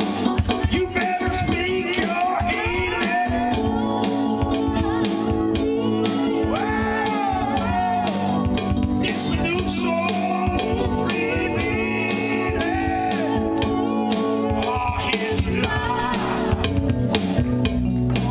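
Live music: a man singing into a microphone while playing a Kurzweil electronic keyboard.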